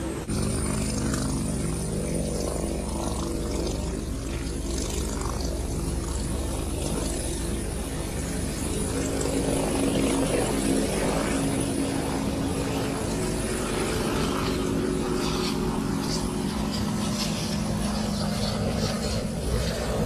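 Air-ambulance helicopter's turbine engine and rotor running steadily at close range, a constant drone with a faint high whine, as the helicopter sits on the pad and then lifts off.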